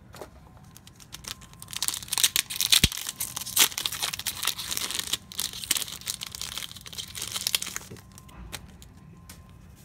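A trading-card booster pack wrapper being torn open and crinkled by hand, a dense run of crackling and sharp crinkles from about two seconds in until about eight seconds in.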